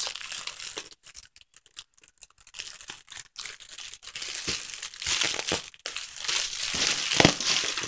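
Plastic packaging crinkling and rustling as items are handled and pulled out of a cardboard box, with a few light ticks. It grows louder about five seconds in, and a single dull knock comes near the end.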